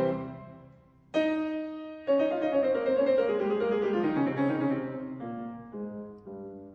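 Background music: slow piano notes that ring out and fade. The sound dies away almost to nothing about a second in before new notes are struck, and a few lower notes follow near the end.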